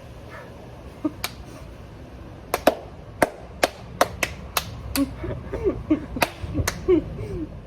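Hand claps: about a dozen single, sharp claps at uneven intervals, more frequent from about two and a half seconds in. They do not land together: two people clapping at different moments.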